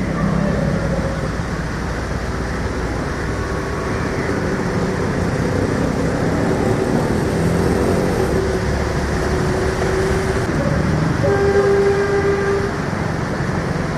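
Road traffic wading through a flooded street: engines running and tyres churning through standing water in a steady wash of noise. A vehicle horn sounds for about a second near the end.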